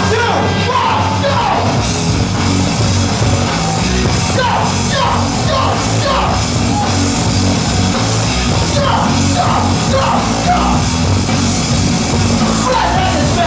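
Loud music with a steady low beat, with short shouted or yelled vocal lines that fall in pitch, repeated several times over the track.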